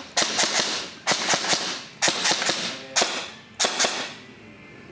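Krytac Kriss Vector airsoft electric gun (AEG) firing five short full-auto bursts in quick succession, each under a second long, then stopping about four seconds in.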